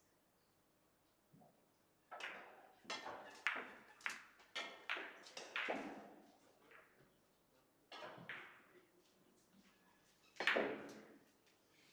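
Billiard balls clacking, a quick run of sharp clicks with short ringing tails from about two seconds in, then single clacks near the middle and about ten seconds in, the last the loudest, echoing in a large hall.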